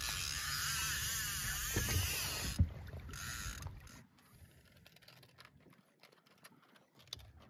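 Fishing reel cranked fast with a whirring hiss that stops about three seconds in, followed by faint clicks and handling as the planer board is taken in hand.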